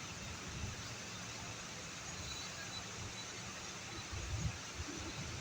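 Steady hiss of rain with an uneven low rumble underneath.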